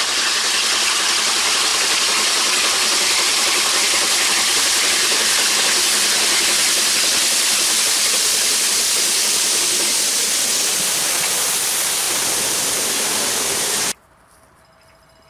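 ČSD class 477.0 steam tank locomotive 477.043 passing close with its cylinder drain cocks open, giving a loud, steady hiss of escaping steam. The hiss cuts off suddenly near the end, leaving only faint outdoor background.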